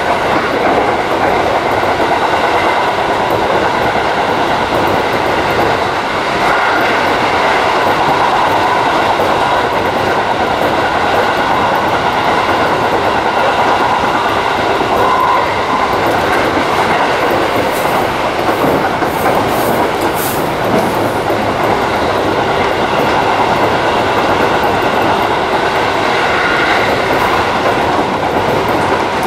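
Seibu Railway 3000 series electric train running along the track, heard from the front cab: a steady rumble of wheels on rails with a few faint high steady tones over it.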